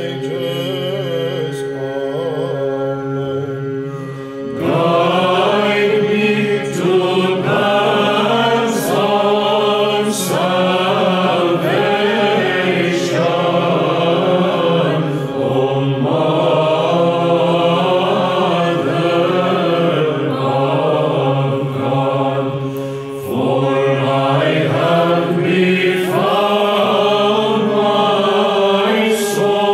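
Byzantine chant: a single chanter sings the melody over a steady held drone (the ison). About four seconds in, the full choir joins on the melody, still over the drone, with a brief breath between phrases about two-thirds of the way through.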